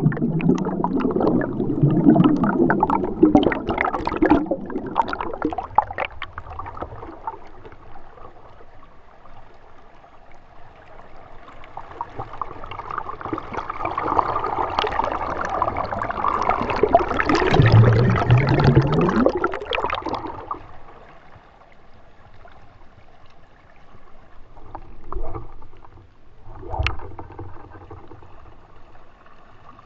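River water splashing and gurgling against a waterproof action camera as it dips under and rises out of the surface, with bubbling underwater. The splashing is loud through the first seven seconds and again from about 12 to 20 seconds in, then settles to a quieter lapping with two short splashes near the end.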